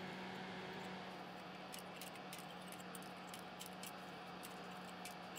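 Side cutters snipping the excess component leads on the underside of a soldered circuit board: a run of small, sharp clicks at uneven spacing, starting about two seconds in, over a faint steady hum.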